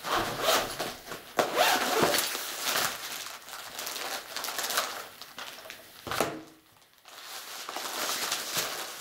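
Rustling and crinkling as a zippered fabric car first-aid kit pouch is opened and its plastic-wrapped dressings are handled, irregular and busiest in the first few seconds, with a short lull about six and a half seconds in.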